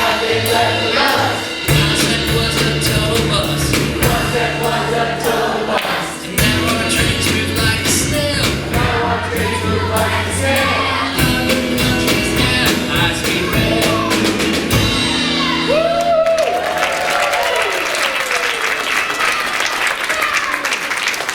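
Live rock band of guitar, keyboard, drums, bass and violin playing with singing, the song ending about three-quarters of the way through. Audience applause and cheering follow.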